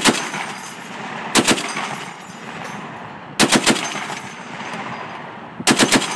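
A HMMWV-mounted .50-caliber M2 Browning machine gun firing four short bursts of two to four rounds each, about two seconds apart, each burst trailing off in a long echo.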